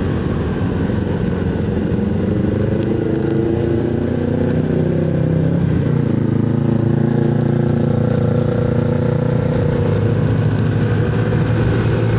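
Motor scooter engine running while riding along a road, with wind and road noise. The engine note dips about four to five seconds in and then rises again as it picks up speed.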